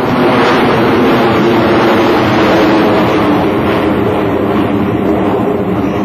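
Jet engines of four US Navy Blue Angels F/A-18 Hornets flying overhead in diamond formation: a loud, steady roar from the twin turbofans of each jet.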